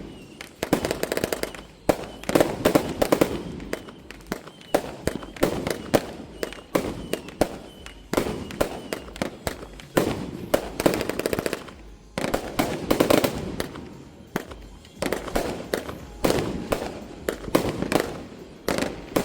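FTS Diablo 100-shot firework cake firing: volleys of sharp bangs and crackles come in dense clusters every one to two seconds.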